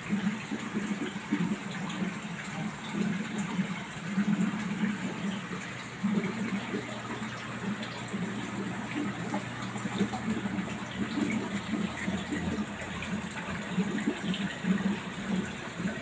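Aquarium water running and bubbling steadily from the tank's filter or aeration, churning the surface.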